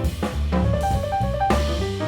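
Background music with drums, bass and melodic instrument notes at a steady beat.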